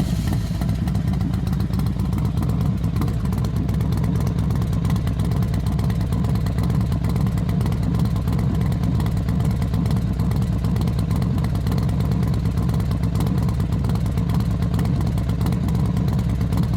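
Honda NC750X's parallel-twin engine idling steadily, just after being started.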